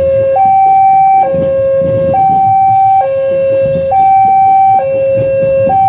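Railway level-crossing warning alarm sounding a loud two-tone hi-lo signal, switching between a lower and a higher tone about every second, which warns that a train is approaching or passing.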